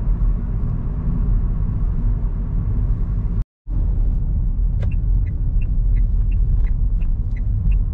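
Steady low road-and-engine rumble inside a moving car's cabin. From about five seconds in, the turn-signal indicator ticks about three times a second, signalling the coming left turn. The sound cuts out completely for a moment about halfway through.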